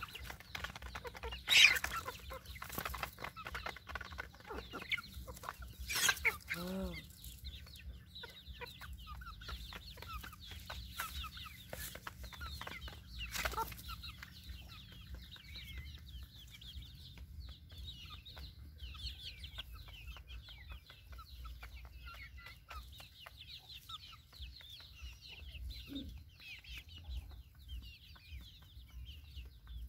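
A hen and young chickens clucking and cheeping while they peck grain from a metal pan, with several sharp taps in the first half and many short high chirps later on.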